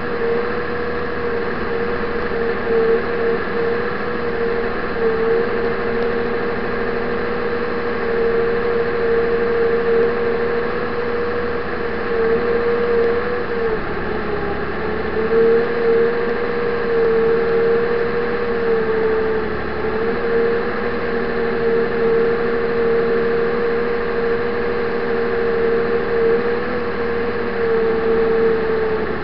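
Tracked snow vehicle's engine and drive running steadily under load as it pushes through deep snow, heard inside the cab, with a steady whine whose pitch dips briefly about halfway through.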